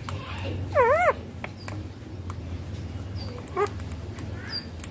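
Baby ringneck parrot calling: a loud wavering squawk about a second in, a shorter call later, then faint chirps near the end, over a low steady hum.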